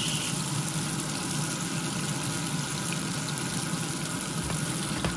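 Butter sizzling and foaming as it melts in a hot frying pan: a steady hiss, with a light knock near the end.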